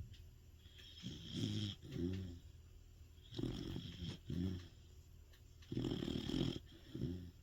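A Sapsali (Korean shaggy dog) snoring loudly in its sleep: three snores about two and a half seconds apart, each a longer breath followed closely by a shorter one.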